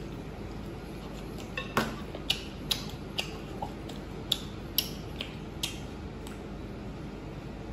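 Eating at the table: a string of about nine short, sharp clicks and clinks, roughly two a second, the first the loudest, as a man chews and handles a small bowl.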